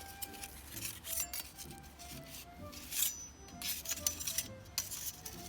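Thin metal plates of a small fire pit clinking and scraping as they are handled and fitted together, with a few sharp clinks about one, three and four-and-a-half seconds in, over soft background music.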